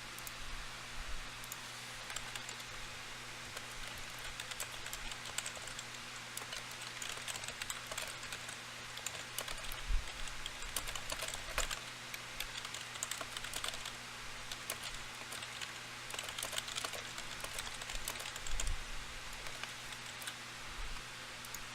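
Computer keyboard typing: irregular runs of quick, light key clicks, over a faint steady electrical hum.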